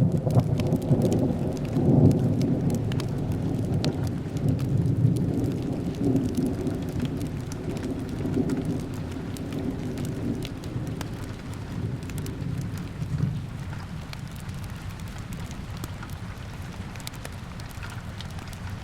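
A long roll of thunder over steady rain: it breaks in suddenly, is loudest about two seconds in, and rumbles away slowly. Small crackles from a wood fire sound through it.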